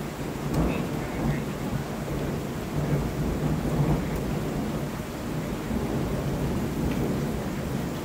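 Rolling thunder rumbling for several seconds, swelling about half a second in and waxing and waning after, over the steady hiss of rain.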